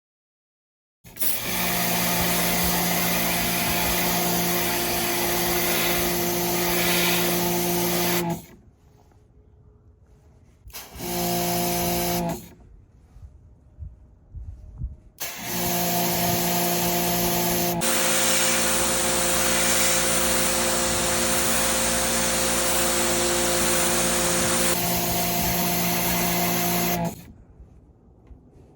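Kärcher pressure washer running and spraying water through a nozzle gun, starting and stopping three times. The motor hums steadily under a hissing spray. In the longest run the spray hiss grows louder for about seven seconds in the middle.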